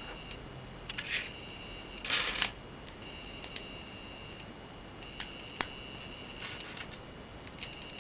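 Small plastic LEGO pieces clicking and rattling as they are handled and pressed together. A brief rattle comes at about one and two seconds in, and a single sharp click comes near the middle. A faint high electronic whine comes and goes behind them.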